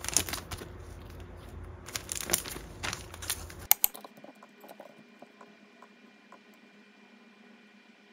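Paper packaging and tissue rustling and crinkling as a leather belt is unwrapped and handled, ending in two sharp clicks a little under four seconds in. After that, only faint, sparse taps on a laptop keyboard.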